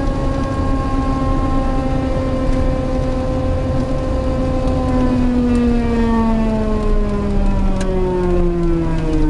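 Loud mechanical whine from a vehicle, with many overtones over a low road rumble; the pitch holds steady, then falls smoothly over the last few seconds as the vehicle slows. It is an unexplained noise whose cause the owner does not know.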